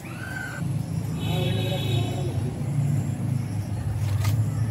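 Low engine-like rumble of a road vehicle, growing louder about half a second in and holding. A brief high tone sounds at the start, and a short set of thin high tones about a second in.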